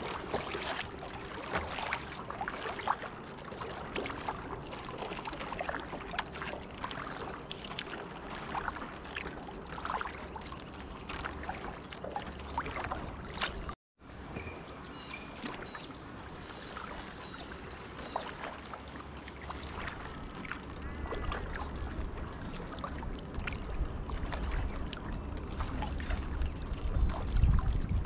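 Kayak paddle strokes: water splashing and dripping off the paddle blades as the kayak glides, in a steady wash of small splashes. A few short high chirps sound a little past the middle, and a low rumble builds near the end.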